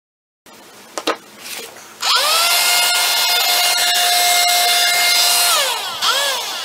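A handheld electric power tool motor spins up with a quick rising whine, runs at a steady pitch for about three and a half seconds, then winds down. A second short spin-up and wind-down follows near the end. Light clicks and handling noises come before it.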